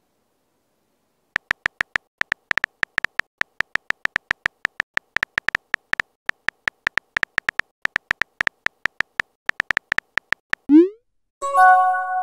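Simulated phone-keyboard typing clicks from a texting app: a rapid run of short ticks, several a second, as a message is typed. They are followed by a rising swoop as the message is sent, then a short electronic chime of steady tones near the end.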